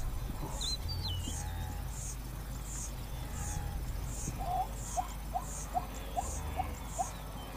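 Savanna wildlife ambience: a high-pitched chirp repeating evenly about once every 0.7 seconds, a brief whistled bird call about a second in, and a series of short rising calls in the second half, over a low rumble.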